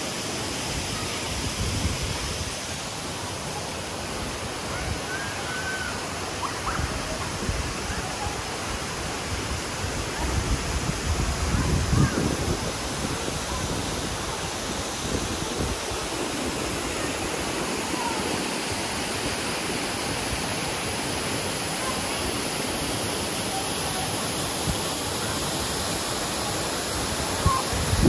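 Steady rush of running water, with a few low thumps, the loudest about twelve seconds in.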